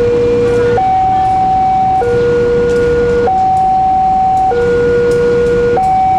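Railway level crossing warning alarm sounding its two-note electronic tone, a low note and a higher note alternating about every second and a quarter, over traffic noise. It signals that the crossing is closed for an approaching train.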